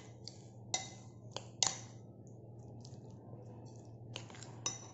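Metal spoon stirring thick semolina batter in a glass bowl: soft scraping with a handful of short clicks of the spoon against the glass.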